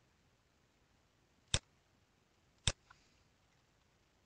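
Two sharp, single clicks from computer input about a second apart, made while entering values in a CAM software dialog; otherwise only faint room hiss.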